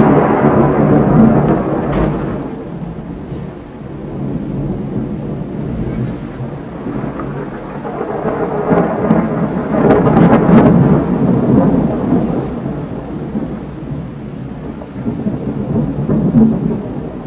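Thunder from a nearby lightning storm. A loud rolling peal at the start dies away over a few seconds. A second rumble then builds, with a few sharp cracks about ten seconds in, and slowly fades.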